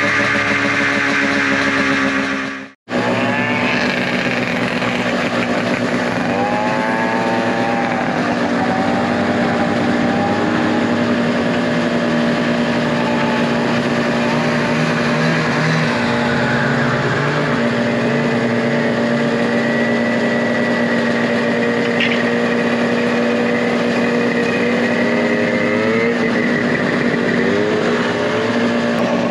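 Vintage snowmobile two-stroke engines idling and revving as sleds pull away. One steady engine note runs underneath, with several short revs that rise and fall.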